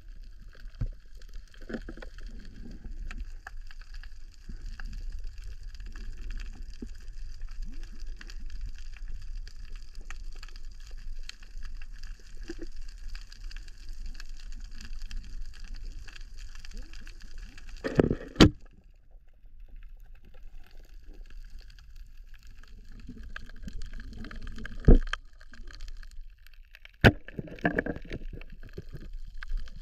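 Underwater sound picked up by a diving camera: a steady hiss and fine crackle over a low rumble. Sharp knocks come about eighteen seconds in, with the hiss dropping out briefly just after, and twice more near the end.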